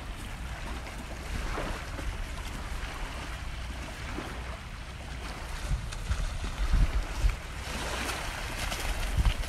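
Wind buffeting the microphone over small waves lapping on a gravel shore, with a hooked salmon splashing at the surface as it is reeled in. The wash gets louder and more uneven in the second half.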